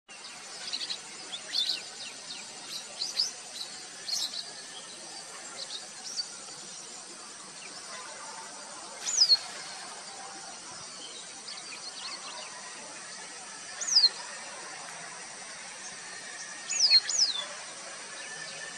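Wild birds calling: scattered short high chirps at first, then loud down-slurred whistles, one near the middle, another a few seconds later and two in quick succession near the end. A steady high insect drone runs underneath.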